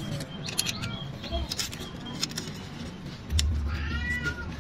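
Scattered light metallic clicks and taps of a wrench and feeler gauge working the valve adjuster on a motorcycle engine's cylinder head while the valve clearance is set. Near the end a low rumble and a short high call come in from the background.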